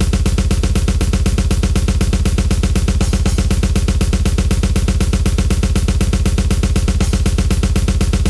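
Death metal drum solo played on a drum kit voice of a Yamaha PSR-E463 keyboard, step-programmed in MIDI: a fast, even, unbroken run of bass drum and snare strokes with cymbals.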